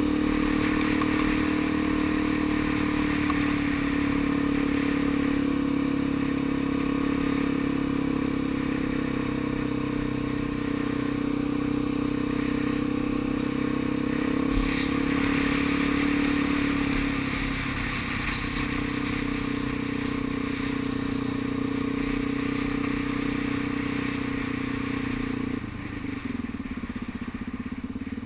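Motorcycle engine running steadily at cruising speed, with wind and road noise. The engine note eases off after about seventeen seconds and drops sharply near the end as the bike slows for traffic ahead. There is one short knock about halfway through.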